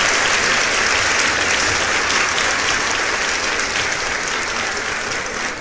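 Group of people clapping, the applause slowly dying down near the end.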